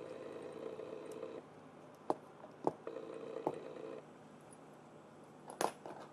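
An electric buzz that comes and goes in stretches of a second or two, with four sharp clicks between them, the last one the loudest.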